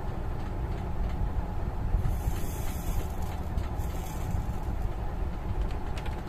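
Steady low background rumble, with a faint hiss about two seconds in.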